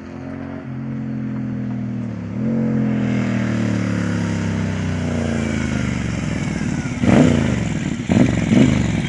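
Moto Guzzi Bellagio's air-cooled 940 cc V-twin through Quad D aftermarket mufflers, approaching and getting louder. Its revs fall, jump back up about two seconds in, then fall again as it slows. A few sharp, louder bursts come near the end as it pulls up close.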